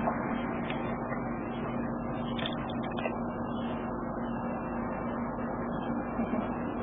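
Steady machine hum: a low droning tone under an even rushing noise, unchanging throughout.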